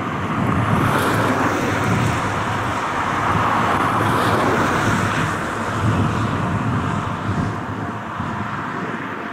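Strong wind blowing over the microphone in uneven gusts, over a steady rushing noise.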